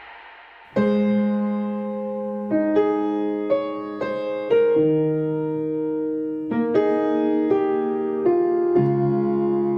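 Background music: electric piano playing slow sustained chords, with new notes struck about every half second to a second. It starts a little under a second in, after a fading tail of a louder sound.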